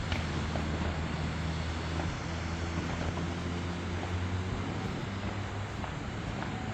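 Steady low engine hum, with a few faint pops of distant fireworks.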